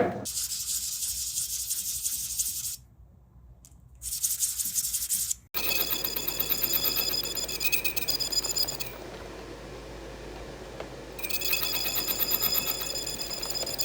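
Machine tool cutting slots in small metal parts: a high, hissing cut with a fast rapid chatter, which stops briefly about three seconds in and then returns. From about five and a half seconds the cut carries a ringing metallic whine, easing off for a couple of seconds and coming back near the end.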